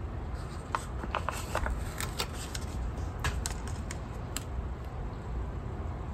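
A paper planner sticker being peeled from its sheet and handled: a run of small crisp clicks and crackles in the first few seconds, then only a low steady background hum.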